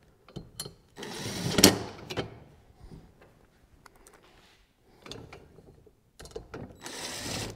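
Steel arms of a wall-mounted lumber storage rack slid down its metal upright by hand: a scraping slide about a second in ending in a sharp clank as the arm seats on its stop screw, light metal clinks, and another scraping slide near the end.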